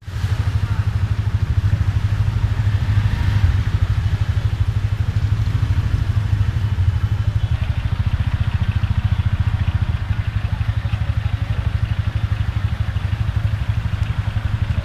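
A small vehicle engine idling steadily with a rapid, low putter.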